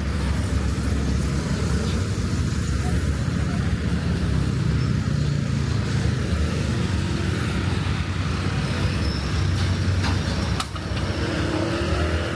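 City road traffic: vehicle engines running and passing in a steady low rumble, with a few light clicks near the end.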